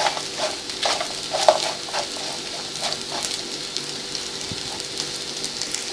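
Pieces of flatbread frying in ghee in a tray, with a steady sizzle and scattered light clicks in the first few seconds. The bread is crisping and nearly toasted.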